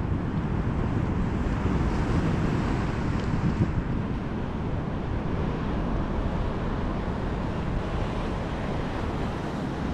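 Wind buffeting the microphone over the steady wash of surf breaking on a beach.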